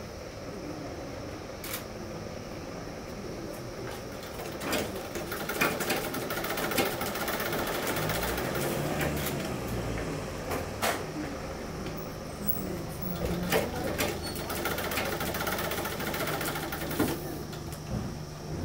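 Old black sewing machine stitching fabric, running steadily with scattered sharp clicks.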